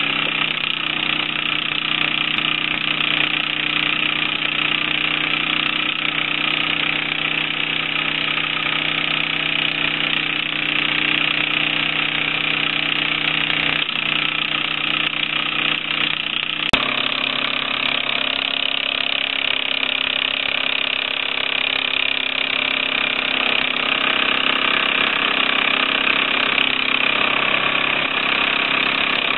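Small model steam engine, a single cylinder with a brass flywheel fed from a vertical boiler, running steadily on the bench test with an even, continuous hiss. There is one sharp click just over halfway through.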